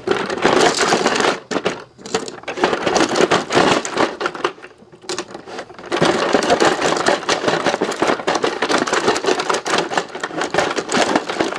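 Rock 'Em Sock 'Em Robots toy being played: rapid, continuous clacking of the plastic controls and the robots' plastic fists trading punches. It eases off for a moment about two seconds in, goes quieter for a couple of seconds around the middle, then clatters densely again.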